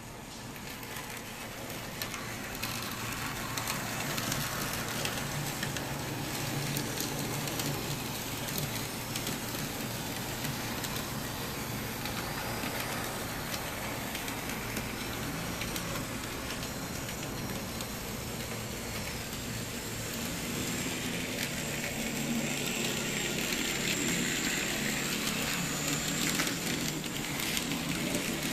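N-scale model trams running on their track: small electric motors whirring and wheels rattling and clicking steadily over the rails, with a crackly edge.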